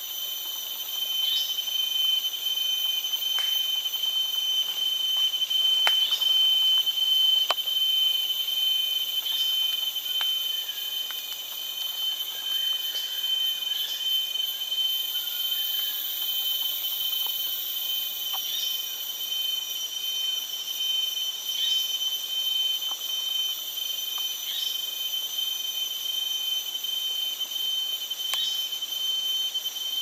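Rainforest insect chorus: several steady, high-pitched whines at different pitches sounding together, one of them pulsing rapidly.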